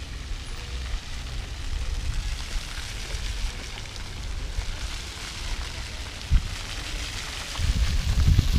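Steady hiss of splashing water from ground-level fountain jets hitting paving. Wind buffets the microphone in low rumbles, stronger near the end.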